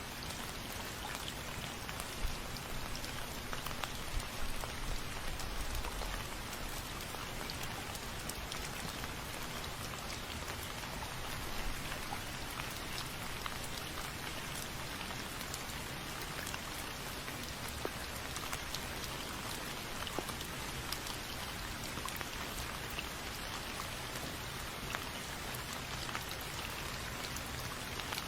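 Steady rain falling, with the patter of individual drops hitting a surface.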